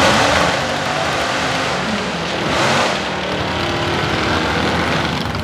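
1968 Plymouth Barracuda drag car's engine revving hard through a burnout, the rear slicks spinning on the track.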